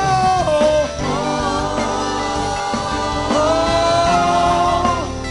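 Gospel worship music: a lead singer holding long wordless sung notes over a live band with guitar.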